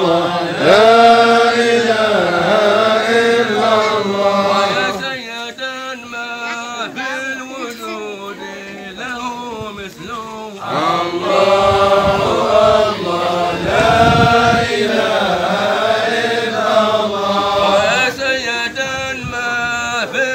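Men's voices chanting a Sufi hadra dhikr together in long, drawn-out phrases. The chant eases off for several seconds in the middle, then swells again.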